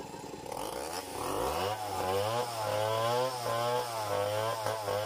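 Stihl chainsaw revving up from idle about a second in and running at high speed with a wavering pitch as it bites into the log, then dropping back near the end.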